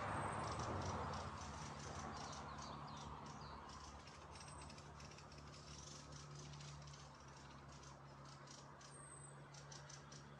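A small motorboat's engine heard across open water, loudest in the first second and then fading as the boat runs away, leaving a low steady hum. Faint dry ticking goes on throughout.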